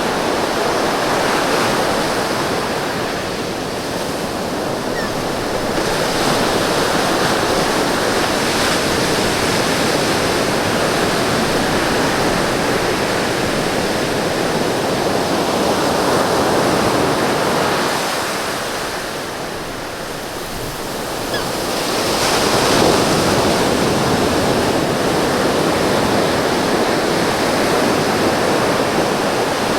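Ocean surf washing steadily onto a beach. It eases about four seconds in, drops lower around twenty seconds in, then surges back up as the next wave breaks.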